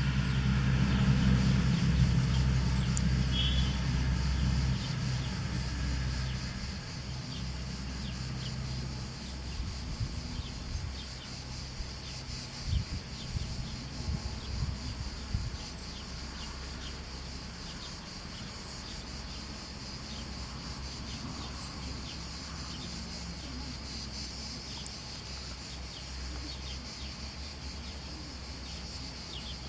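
Outdoor ambience: a low motor hum fades out over the first several seconds, under steady high insect chirring with a few short bird chirps.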